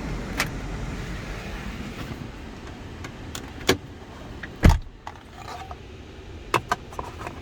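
Sharp clicks and knocks of things being handled in the SUV, with one heavier thump about two-thirds of the way in. A low vehicle rumble fades out over the first couple of seconds.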